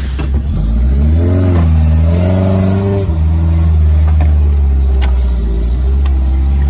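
Off-road 4x4's engine revving up in two pulls about a second in, then running steadily at high revs.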